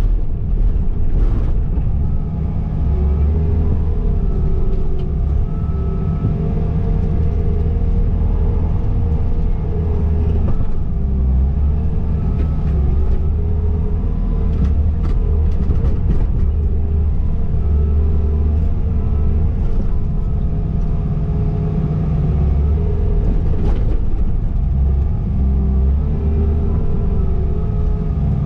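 Skid steer engine running steadily under load as it pushes snow, its pitch rising and falling a little with the work, with a few brief knocks scattered through.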